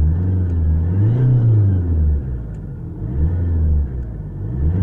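VW Bora 1.9 TDI four-cylinder diesel running with a low drone from the accessory belt drive that repeatedly swells and fades, about three swells in a few seconds. The noise comes from a worn idler (deflection) pulley.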